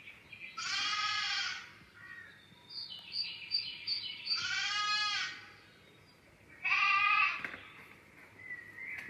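Lambs bleating: three long bleats a few seconds apart, with faint bird chirps between them.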